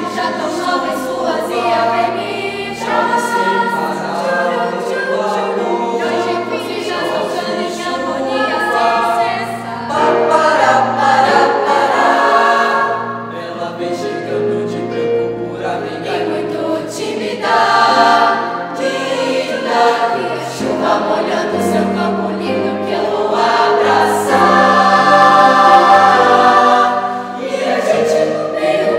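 Youth choir of teenage boys and girls singing together, several voices holding notes at once, swelling louder twice.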